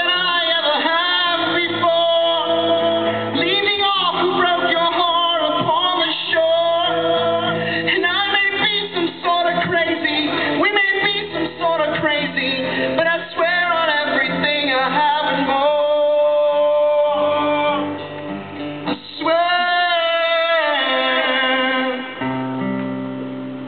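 Live song performance: a man singing long, sliding held notes over guitar. A little before the end the voice stops and the guitar plays on more quietly.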